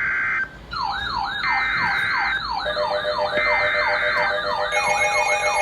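Emergency alert signal: three short bursts of EAS digital header tones, a second apart, with a fast up-and-down wailing siren tone joining about a second in; steady alert tones join it about halfway through.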